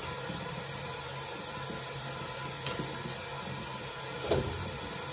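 Kitchen tap running a thin stream of water into a stainless steel sink: a steady splashing hiss. A faint click comes a little past halfway, and a short, louder sound about four seconds in.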